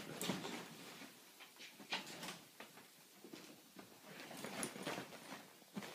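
Faint rustling of a duvet cover and scuffling of small paws as a puppy and a kitten play-fight on a bed, in scattered irregular scuffs.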